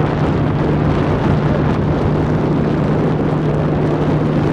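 Speedboat motor running steadily under way: a constant low hum beneath a heavy, even rush of wind and water.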